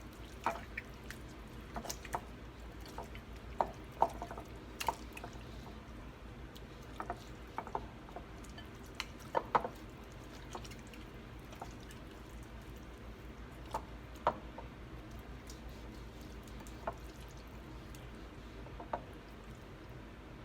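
Hands working seasoning into raw chicken: scattered small wet squelches and clicks, more frequent in the first few seconds, over a steady low hum.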